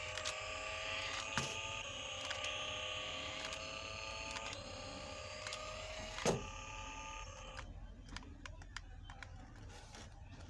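Small electric drive motor and gearbox of a remote-control toy car whining steadily as it drives, with light ticking. A sharp knock about six seconds in, and the whine stops soon after, leaving only faint ticks.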